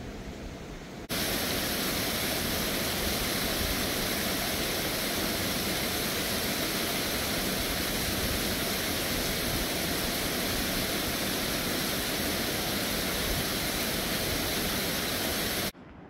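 Water rushing over sandstone ledges and small cascades: a steady, even rush that starts abruptly about a second in and cuts off just before the end.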